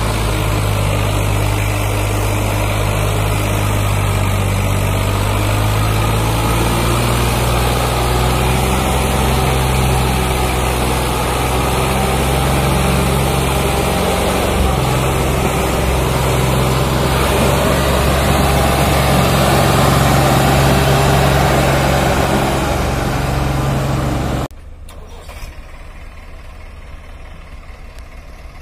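Swaraj 744 FE tractor's diesel engine working hard as it pulls a heavily loaded trolley, a steady loud note that rises a little and swells late on. About 24 seconds in it cuts off abruptly to a much quieter engine running in the background.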